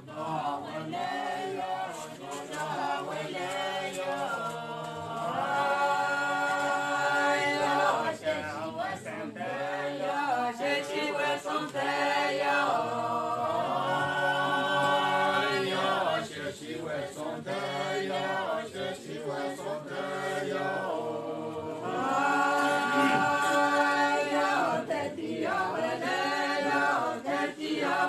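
A choir singing unaccompanied in several voice parts, with long held chords twice.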